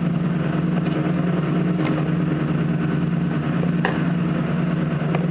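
A steady machine-like hum, with a few light taps about two, four and five seconds in.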